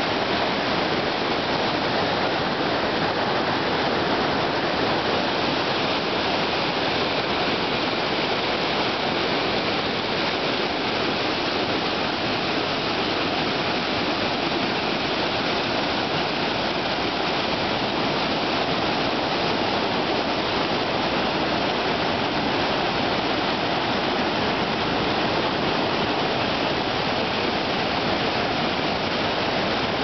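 Mountain-river waterfall: white water pouring and churning over boulders in a steady rush.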